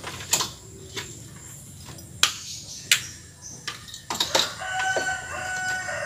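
A rooster crows once, a drawn-out call starting about four and a half seconds in. Before it come several sharp clicks and knocks, the loudest of them a little past two and three seconds in.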